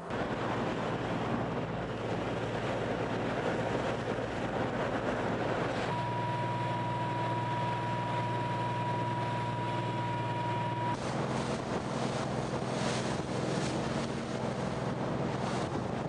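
Wind buffeting the microphone over a steady low machinery drone at sea. A single steady high tone sounds for about five seconds in the middle, then stops abruptly.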